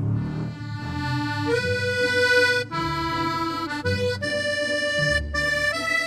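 Cute background music: a melody of held notes that change pitch about every half second to a second, over a low accompaniment.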